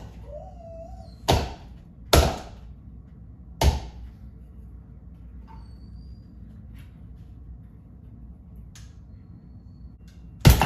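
Sharp knocks and snaps as an LED retrofit insert is pushed and slapped up into a ceiling recessed can light: three in the first four seconds and one more near the end, with a brief squeak just before the first.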